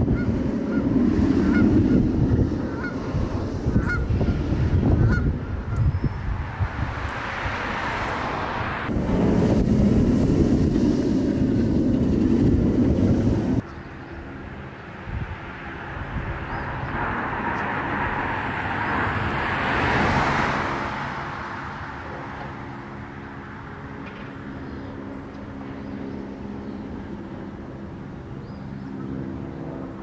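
Wind gusting on the microphone. After a cut, a steel hyper coaster train runs along its track, its roar swelling and fading about twenty seconds in, over a steady low hum.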